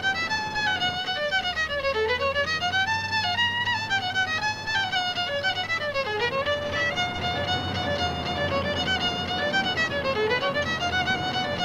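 Music: a fiddle playing a quick tune, a fast run of notes that dips to a low note every few seconds, over a faint low accompaniment.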